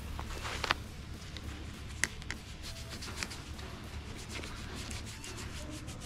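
Rustling and handling noise from an airsoft player's gear and movement, with a few sharp clicks scattered through it.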